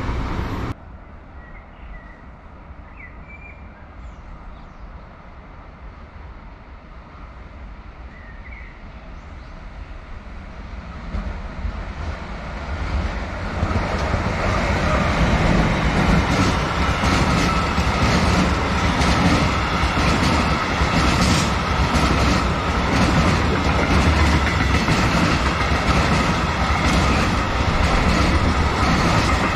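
A train approaches, growing louder over a few seconds, then passes close by with a steady rumble and repeated clacks of its wheels on the rails.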